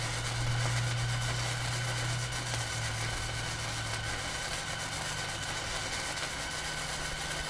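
Flux-core wire welding arc from a Blue Demon 140MSI welder, a steady sizzle, with a low hum under it that fades about four seconds in.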